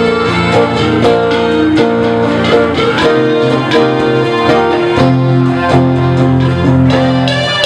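Live band playing an instrumental passage: electric keyboard chords over a steady drum-kit beat, with guitar.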